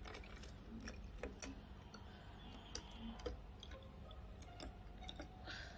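Water being poured slowly from a plastic measuring jug into a plastic water bottle: a faint trickle with scattered, irregular small ticks of drips.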